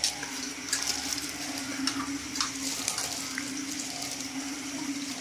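Light clicks and clinks of dishes and utensils as people eat, scattered through a few seconds, over a steady low hum.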